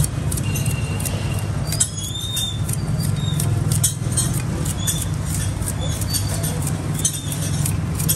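Quick, repeated scraping strokes of a hand blade stripping the rind off a sugarcane stalk, over a steady low hum.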